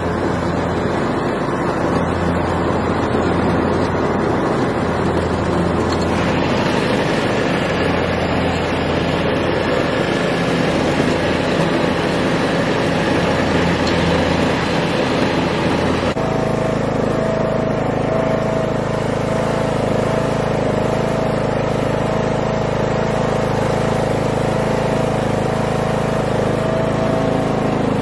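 John Deere D110 riding lawn mower running steadily as it mows, its engine drone steady throughout. The tone changes abruptly about halfway through.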